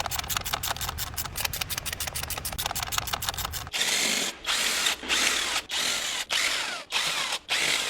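Handheld power tool working fasteners on a BMW N55 engine's valve cover: a fast run of rapid clicks for the first few seconds, then a series of short bursts with brief pauses between them.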